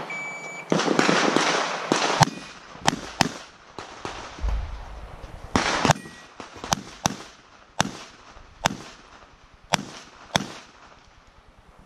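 A shot timer's start beep, then an Open-division competition pistol firing a string of shots, some single and some in quick pairs, as the shooter works through a stage.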